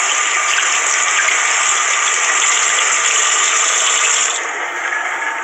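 Running water gushing steadily, easing off about four seconds in.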